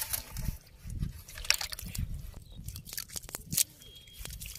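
Hands working a wet fishing net and fish in shallow mud, close to the microphone: irregular crackles and clicks with a few soft low thumps.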